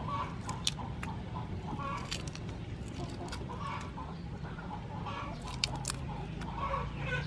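Chickens clucking in short repeated calls, with a few sharp clicks and splashes from prawns being handled in a steel bowl of water, over a steady low hum.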